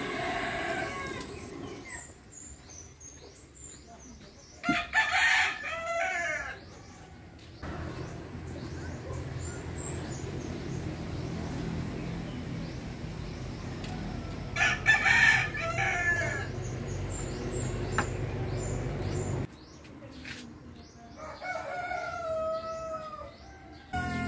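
Rooster crowing twice, about five seconds in and again about fifteen seconds in, with a further call near the end and small birds chirping faintly.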